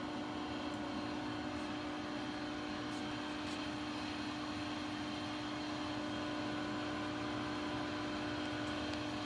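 Powered-up Haas CNC machine control cabinet running during a test of its repaired processor board: a steady hum with a fan-like rush and one strong constant tone, unchanging throughout.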